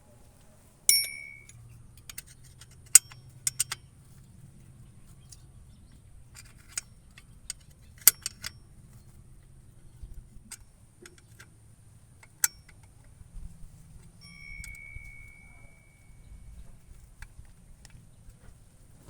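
Metal hand tools clinking and knocking, with scattered sharp clicks. Twice a struck metal part rings briefly, about a second in and again later, the second time fading out over a second or so.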